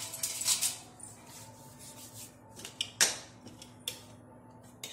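A nonstick frying pan being handled on a gas stove's metal grate: a cluster of light clicks and rattles in the first second, then one sharp knock about three seconds in and a few faint clicks after.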